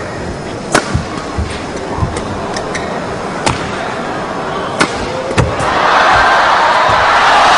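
Badminton rally: rackets striking the shuttlecock with sharp cracks every second or two over an arena crowd's background noise. About six seconds in, the crowd starts cheering loudly and keeps it up as the rally goes on.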